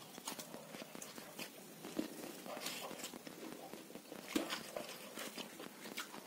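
Eating sounds close to the microphone: irregular faint clicks and smacks, with two sharper taps, one about two seconds in and one a little after four seconds.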